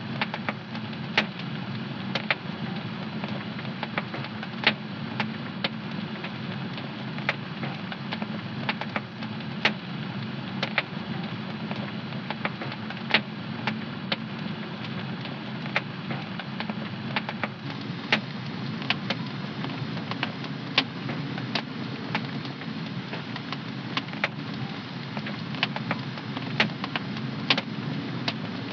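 Wood fire in a home fireplace crackling: a steady low rush of burning with sharp pops at irregular intervals, about one or two a second.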